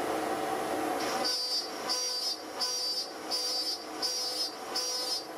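CNC router spindle cutting walnut with a quarter-inch end mill on a dowel-hole toolpath. About a second in, the steady machine noise gives way to a high whine that comes and goes about every 0.7 s, six times, as the bit repeatedly plunges into the wood.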